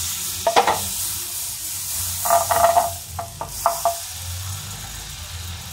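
Butter sizzling and foaming in a hot nonstick pan while a wooden spatula stirs it, scraping across the pan in a few short strokes about half a second, two and a half and three and a half seconds in. The sizzle fades somewhat near the end.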